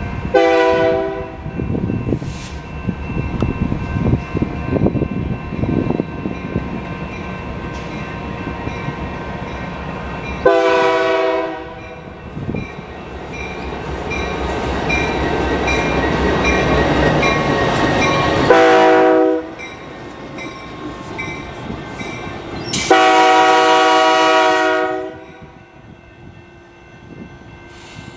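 Diesel-electric locomotive sounding its multi-chime air horn four times, the third blast short and the last the longest. Between the blasts the engine rumbles and the train clatters, swelling louder in the middle.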